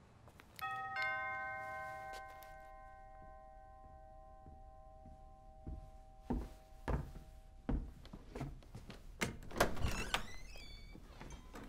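A doorbell chime sounds two notes, ding-dong, struck about half a second apart, ringing on for several seconds as they fade. From about six seconds in comes a string of heavy thuds and knocks.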